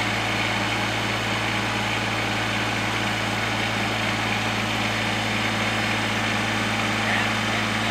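Compact tractor engine idling steadily.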